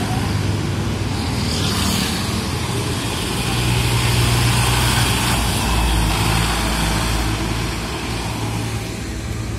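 Diesel farm tractor engines running with a steady low drone as tractors drive past, a little louder about four to six seconds in.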